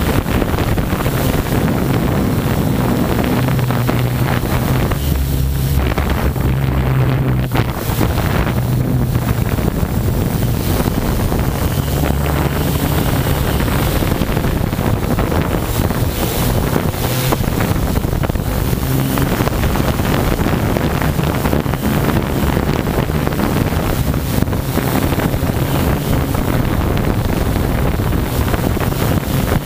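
Mikrokopter multicopter's electric motors and propellers running in flight, a low hum that wavers in pitch, under heavy wind buffeting on the onboard GoPro microphone.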